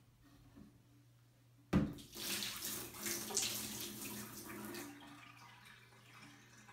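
A knock, then the last of the water in a toilet tank pouring out into a bathtub as the tank is tipped, splashing for about three seconds before trailing off.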